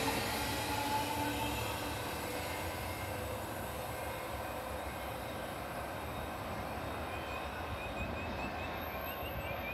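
Queensland Rail New Generation Rollingstock electric train pulling away. Its electric motor whine rises slightly in pitch and fades out over the first second or so, leaving a steady fading rumble of the train in the distance.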